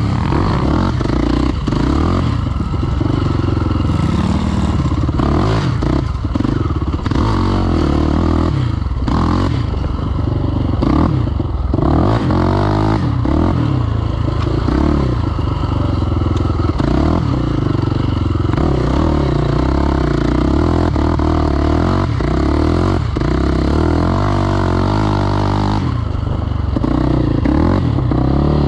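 KTM 525 XC quad's single-cylinder four-stroke engine revving up and down under hard riding over a rough, rutted trail, with frequent knocks and rattles from the chassis hitting bumps.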